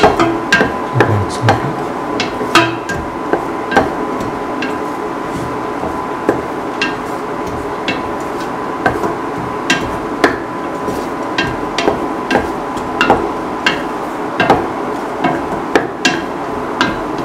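A spatula stirring onions, shallots and green chilies frying in oil in a steel pan, knocking and scraping against the pan about once or twice a second over a steady sizzle.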